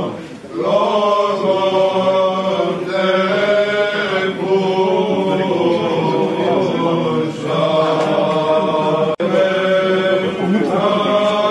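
Byzantine chant sung by male chanters in long held melodic phrases over a steady low drone. The sound cuts out for an instant a little past the middle.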